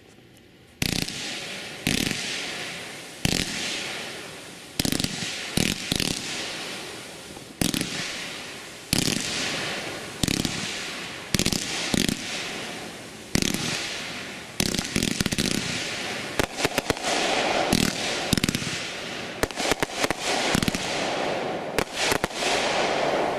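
World Class 'Home Team' 500 gram fireworks cake firing its 47-shot fan: a string of sharp bangs about a second apart, each with a long fading rumble. From about two-thirds of the way through, quicker clusters of crackling reports come in between the bangs.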